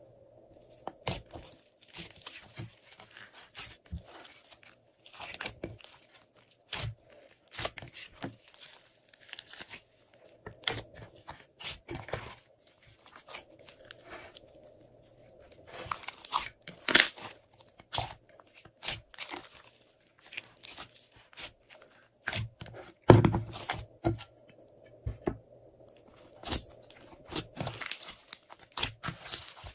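Glossy slime being mixed and squished by hand: an irregular run of sticky crackles and little pops, busiest about sixteen seconds in, with one heavier squelch around twenty-three seconds.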